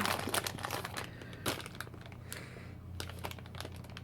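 Crinkling plastic candy packet being handled, in a few separate crackly bursts with fainter rustling between.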